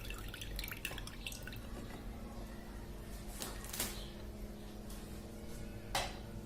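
Lemon juice dripping and trickling into a small pot, a patter of small drops at first, then a few sharper light clicks.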